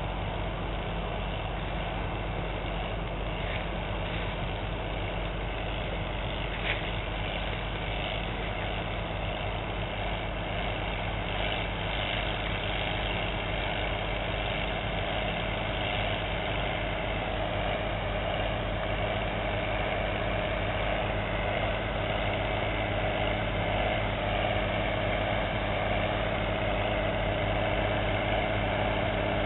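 Diesel engine of a large four-wheel-drive tractor running steadily under load as it pulls a disc harrow through stubble, growing slowly louder as it comes closer.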